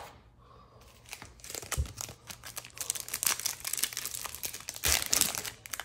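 Plastic wrapper of a trading-card pack crinkling and tearing as the pack is ripped open. The crackling starts about a second in and grows denser and louder through the second half.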